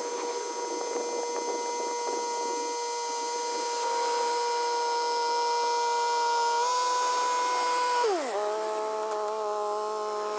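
Yanmar F195 compact tractor's diesel engine and rear rotary tiller running steadily under load with a high whine; about eight seconds in the revs drop sharply and settle at a lower speed.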